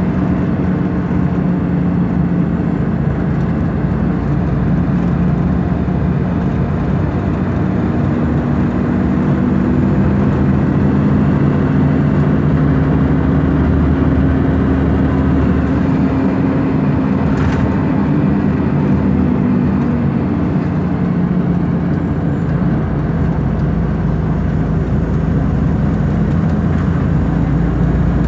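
The Scania DSC9 nine-litre six-cylinder diesel of a 1999 Scania L94UB city bus drones steadily under way over road and tyre noise, heard inside the passenger cabin. Its pitch rises slightly around the middle and eases back lower after about two-thirds of the way through.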